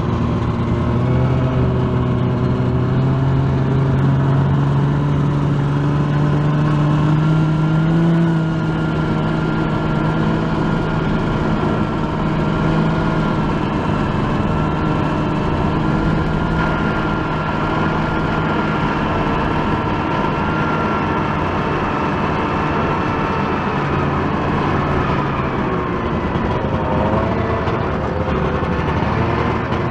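Arctic Cat Jag Longtrack snowmobile's two-stroke engine running under way. Its pitch climbs over the first several seconds as it picks up speed, then holds steady, and it drops and wavers near the end as the throttle eases.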